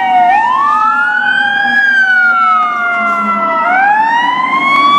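Fire engine sirens wailing. One tone sweeps slowly up, down and up again, while a second siren glides steadily downward under it.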